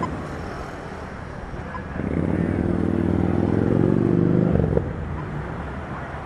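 Street traffic noise. About two seconds in, a vehicle's engine comes up, rising in pitch and growing louder as it accelerates, then drops away suddenly near the five-second mark.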